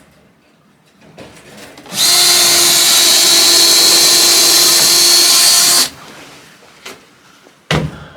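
Power drill running at a steady speed for about four seconds, drilling a hole for an eye bolt, with a few light knocks afterwards.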